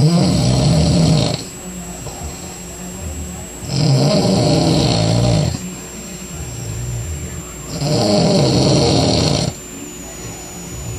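A sleeping man snoring loud: three long snores about four seconds apart, each lasting a second and a half or so, with quieter breathing between them.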